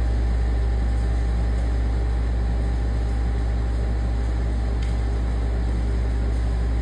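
Steady low mechanical hum, like a shop fan or air-conditioning unit running, with one faint click about five seconds in.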